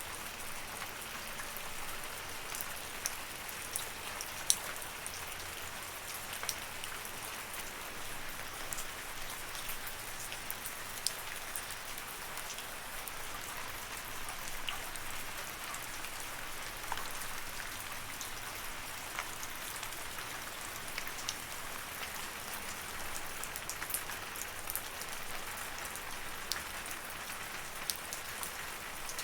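Steady rain: an even hiss of falling drops, with scattered sharper ticks of single drops hitting a surface.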